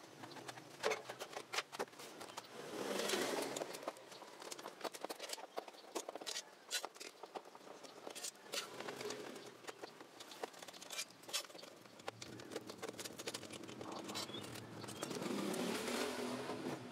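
Irregular clicks, taps and light metal knocks from hands taking apart a mini home theater's sheet-metal casing and handling its wiring.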